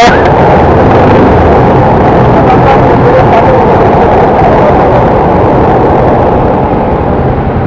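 Steady, loud rumble of motorcycle engine and road traffic in slow stop-and-go city traffic.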